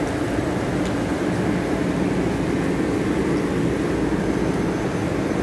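Steady low rumble of railway station platform ambience, with no distinct events and no change in level.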